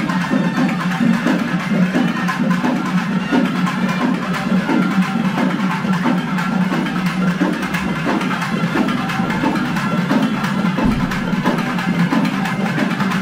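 Loud music carried by fast, steady drumming with sharp, dense strokes, which does not let up.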